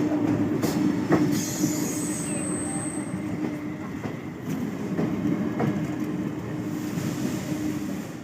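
Indian Railways MEMU electric multiple-unit train running past, its wheels clacking over rail joints in a regular beat under a steady hum. The sound fades slowly.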